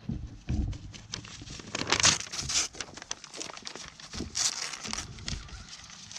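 A goat biting and pulling at a sheet of paper: irregular paper crinkling and tearing, loudest in a couple of bursts around two seconds and four and a half seconds in.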